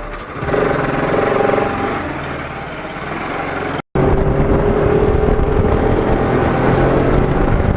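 Bajaj Pulsar RS200's single-cylinder engine running. A cut about four seconds in is followed by a louder, steady engine note under the ride.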